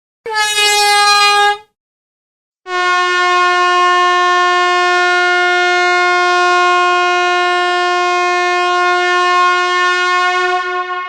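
Gas-canister air horn sounding: a short blast of about a second, then, after a second's gap, a long steady blast lasting about eight seconds that begins to fade near the end. One loud, strident held tone.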